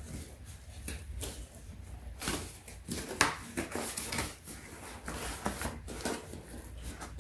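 Cardboard shipping box being pried and torn open where it is stapled shut, the stiff cardboard crackling, scraping and rustling in irregular snaps.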